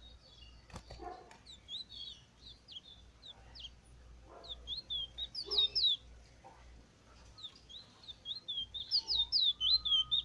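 Bullfinch singing in three quick bursts of high, rapid chirping notes, the last two the loudest.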